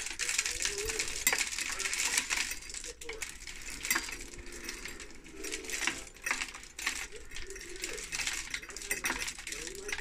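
Birdseed poured from a bag into an empty plastic soda bottle: a dense patter of small clicks as the seeds fall onto the plastic and onto the growing pile inside.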